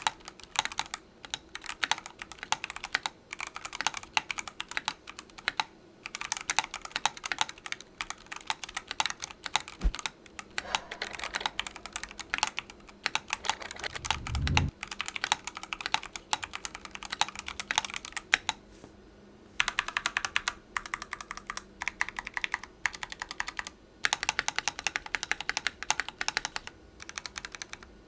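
Mechanical keyboard with C3 Equalz x TKC Kiwi tactile switches and Matrix Keyboards keycaps being typed on in fast, continuous runs of keystrokes, with short pauses about six seconds in and near two-thirds of the way through. A brief low thump sounds about halfway.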